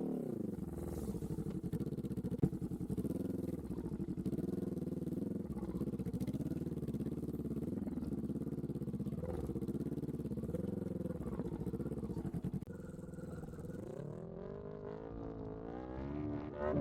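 Honda CBR sportbike engine revving up and down as the bike is ridden into a muddy crossing, with a sharp knock about two and a half seconds in. The sound drops in level about thirteen seconds in, then the revs climb again near the end.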